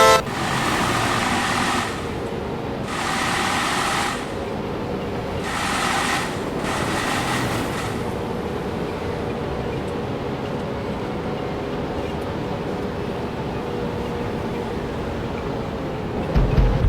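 Road traffic noise: a steady rush of vehicle engine and tyre noise, with several louder surges in the first eight seconds and a low thump near the end.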